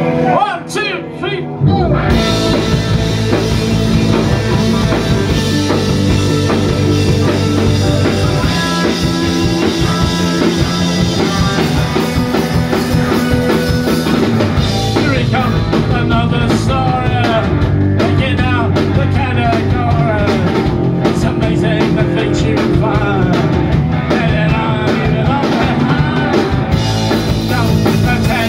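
Punk rock band playing live through a pub PA: electric guitars, bass guitar and drum kit with a male lead vocal. After a brief break, the full band comes in about two seconds in, and the singing is strongest in the second half.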